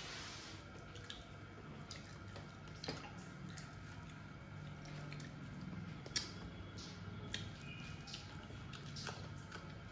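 A person eating rice by hand from a plate: faint wet mouth and finger sounds of mixing and chewing, with a few sharp clicks scattered through it. A steady low hum runs underneath.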